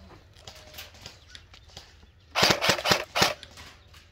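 Airsoft rifle firing: a short rapid burst of sharp cracks about two and a half seconds in, then another shot a moment later, with fainter scattered shots before.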